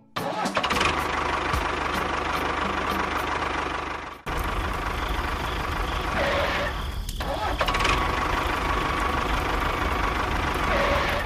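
A motor running steadily with a steady whine over a low rumble, cutting out briefly about four seconds in and starting again at once.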